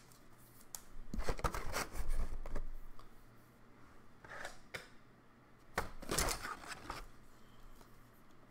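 A trading card being handled in clear plastic sleeves and slid into a rigid plastic holder: short bursts of plastic rustling and sliding. The loudest come about a second to two and a half seconds in and again around six seconds in.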